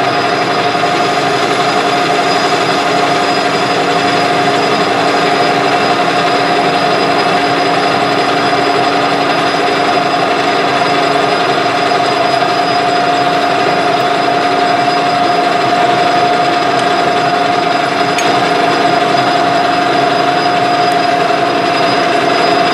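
Metal lathe running steadily, its headstock giving a constant whine over the noise of the machine.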